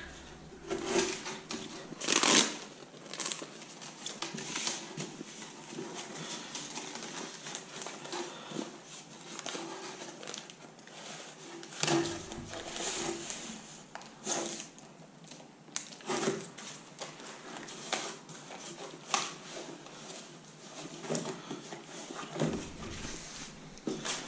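Aluminium foil tape being worked by hand around a plastic ventilation duct fitting: irregular crinkling and crackling with scattered sharper clicks, the loudest about two seconds in.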